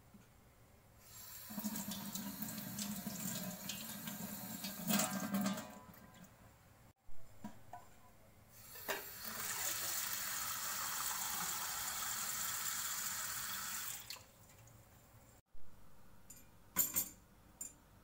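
Kitchen tap running in two stretches: first water running over eggs rinsed by hand in a stainless steel sink for about four seconds, then the tap filling a small stainless steel pot holding the eggs for about five seconds. Near the end come a few sharp clinks as the pot is set on the gas stove's grate.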